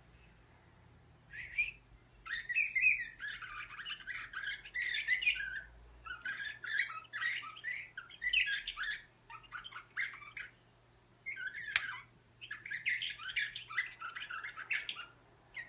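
Caged song canary singing in a run of short phrases of rapid chirps and trills, broken by brief pauses. The song starts about a second in.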